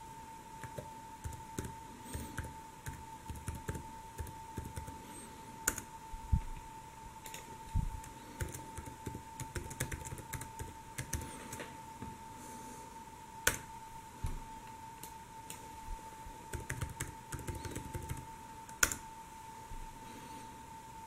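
Typing on an HP laptop keyboard: runs of key clicks with pauses, and a few sharper, louder clicks. A thin, steady high-pitched whine runs underneath.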